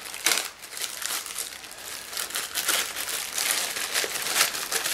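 Small plastic zip-lock bag crinkling and rustling in the hands as it is opened to take out a new replacement part.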